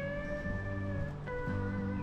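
Background music with guitar: sustained notes between pauses in the narration.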